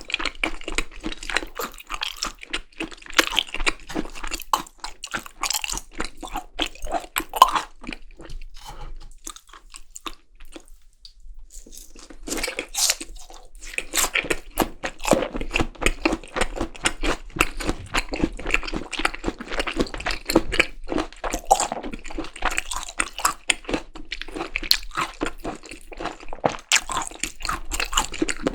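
Close-miked eating sounds of Korean raw beef tartare (yukhoe): dense, irregular chewing and biting with crunches, easing off briefly about ten seconds in before the chewing picks up again.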